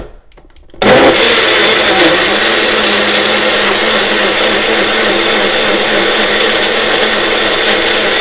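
Personal single-serve blender motor switches on under a second in and runs steadily at full speed, blending fruit and orange juice.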